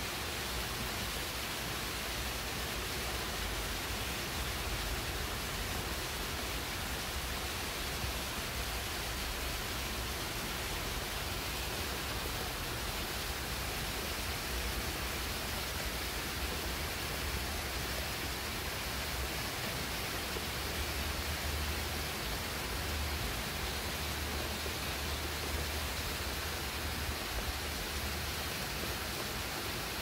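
Steady rain falling on dense leafy shrubs and trees, an even hiss with a low rumble underneath.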